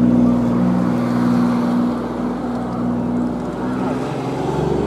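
P-51 Mustang's Packard Merlin V-12 aero engine running steadily as the fighter flies overhead, a higher tone coming in near the end.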